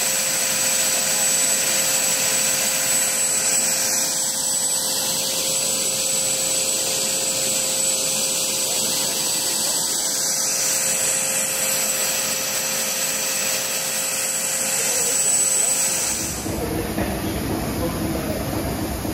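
Small home-built gas turbine engine running steadily on its trolley test rig: a constant high whine over a dense rush of noise. About sixteen seconds in this sound cuts off abruptly and a lower-pitched machinery sound takes over.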